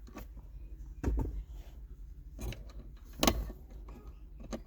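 Flathead screwdriver prying at the small plastic shift release button cap on a gear shifter: a few separate clicks and knocks, the loudest about three seconds in.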